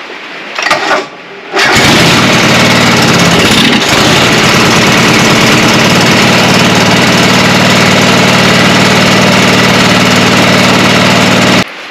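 John Deere 425 lawn tractor's liquid-cooled V-twin engine comes in abruptly about a second and a half in and runs steadily, then cuts off suddenly near the end. It is running properly on fuel now that the carburetor's fuel shutoff solenoid has had its tip cut off.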